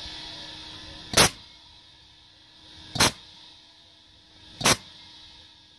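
Homemade pulse-air DPF cleaner firing compressed-air blasts through its 1-inch diaphragm valve into a diesel particulate filter: three sharp, loud pops about 1.7 seconds apart, each fired when the tank reaches its trigger pressure, blowing carbon out of the filter. A hiss fades away in the first second.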